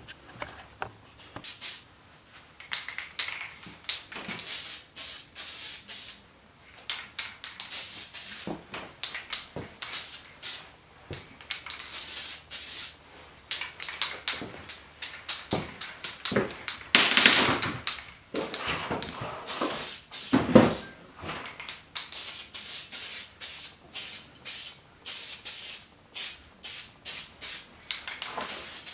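Aerosol can of Mitchakuron adhesion primer hissing in many short bursts as it is sprayed onto bare cast-aluminium engine parts, with a longer, louder spray a little past halfway; the coat keeps the paint from peeling.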